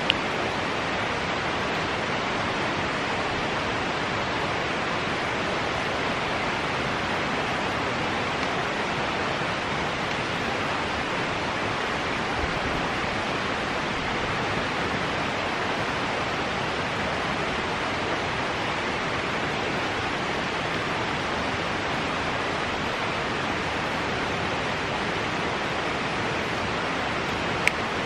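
Steady, even rushing noise that holds the same level throughout, with no distinct events in it.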